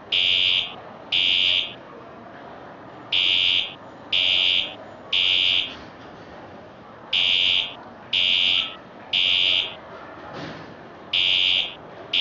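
Wheelock fire alarm speaker strobe sounding the temporal code-3 evacuation pattern. It gives three loud, high-pitched beeps about a second apart, pauses, and repeats the group about every four seconds.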